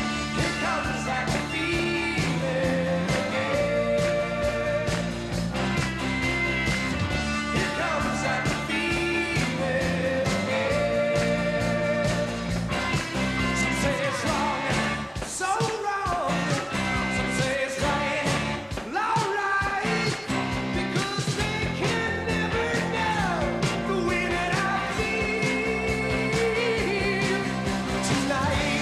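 Rock band playing a pop-rock song, with a male lead singer over electric guitar, bass guitar, drums and synthesizer keyboards.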